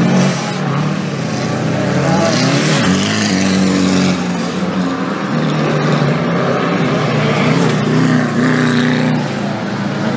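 Off-road 4WD race vehicles' engines revving hard, several at once, their pitch rising and falling as they accelerate and ease off.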